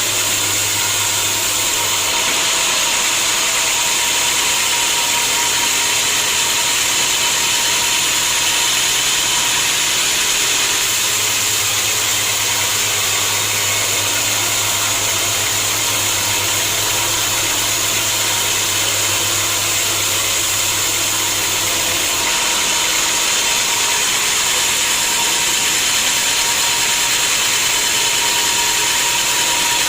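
Sawmill machinery running steadily. A low hum underneath drops out about two seconds in, returns around eleven seconds, and drops out again a little past twenty seconds.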